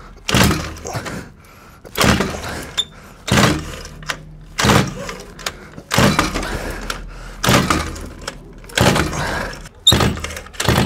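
Homemade four-cylinder two-stroke engine built from Druzhba chainsaw engines being kicked over by its kickstarter, about eight kicks roughly a second and a half apart. Each kick gives a short burst of cranking noise that dies away, and the engine does not keep running: three of its four cylinders are not firing.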